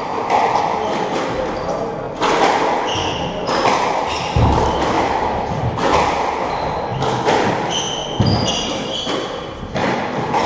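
Squash rally: the ball is struck by rackets and smacks off the court walls about every second or so, echoing in the enclosed court. Short high squeaks come from sneakers on the wooden floor.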